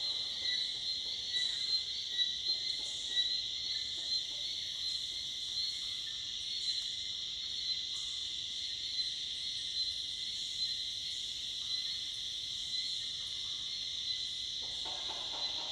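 Evening insect chorus of cicadas and crickets in tropical forest: a steady, high-pitched drone. A lower sound comes in near the end.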